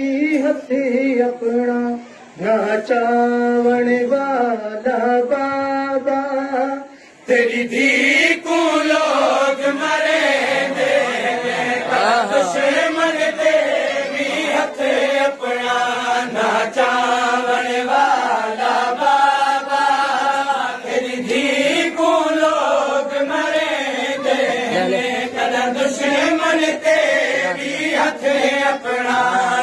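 Shia noha (mourning lament) sung by a male reciter, answered by a crowd of men chanting the lament together in unison. After a short break about seven seconds in, the group sound fills out, with sharp regular beats running under the voices.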